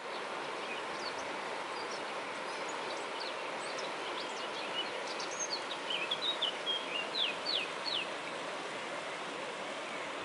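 Steady rushing of a river in spate, with a songbird singing a quick string of short, high, falling notes, thickest in the middle.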